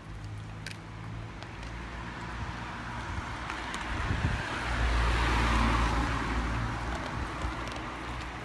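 A car driving past on the street, getting louder to a peak about five seconds in and then fading, over a steady low rumble.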